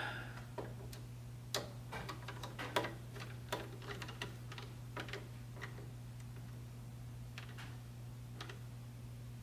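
Small irregular clicks and ticks of a precision screwdriver turning the clamp screw of a VFD's screw-terminal block, tightening a signal wire into the RS− terminal, over a steady low hum. The clicks come often at first and thin out in the second half.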